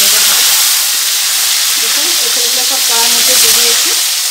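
Young green jackfruit pieces frying in hot oil in an aluminium kadai: a loud, steady sizzle, with a brief knock right at the start.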